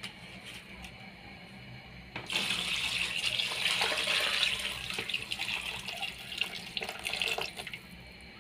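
Running water splashing hard into a plastic bowl of raw meat pieces as they are washed. It starts suddenly about two seconds in and tapers off near the end.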